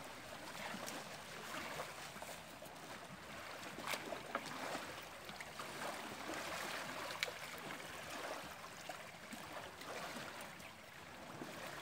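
Small lake waves lapping and washing at the shoreline, a steady watery hiss, with a couple of sharp knocks or splashes about 4 and 7 seconds in.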